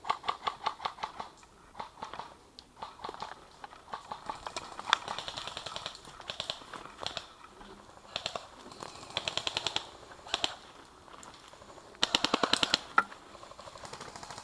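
Airsoft guns firing in short, rapid full-auto bursts and scattered single shots, with the longest and loudest burst near the end.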